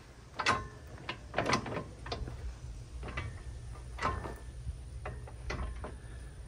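Steel grapple attachment and its quick-hitch mount clanking and knocking as the grapple is shifted by hand to line up the pin holes. There are about eight sharp metal knocks, spaced irregularly, some ringing briefly.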